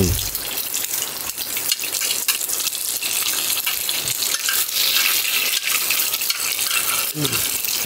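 Pork and mushrooms frying in a pan: a steady sizzling hiss with many small crackling pops.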